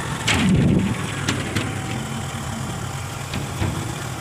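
Steady low rumble of a motor vehicle's engine, with a brief louder burst of noise about half a second in.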